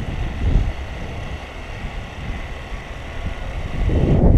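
Wind buffeting the microphone: an uneven low rumble that grows louder near the end.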